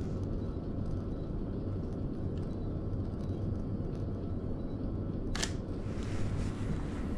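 Steady low hum inside a stopped passenger train carriage, with one short sharp click about five seconds in.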